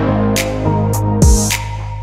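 Background music with a slow beat: deep kick drums and sharp hits over held tones.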